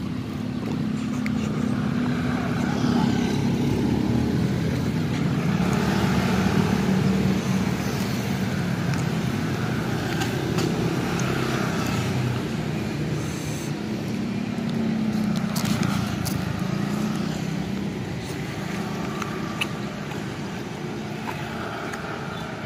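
Road traffic going by: motorcycles and cars passing one after another, their engine hum swelling and fading.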